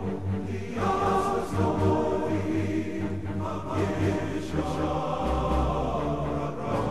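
Background choral music: a choir singing slow, held chant-like chords over low bass notes.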